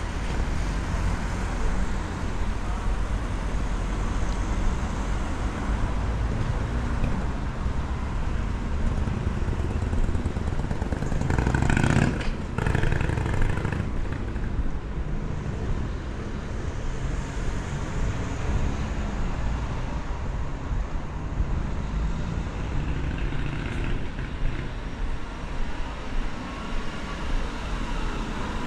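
City street traffic: steady road noise of passing cars, with one vehicle passing close and loudest about twelve seconds in.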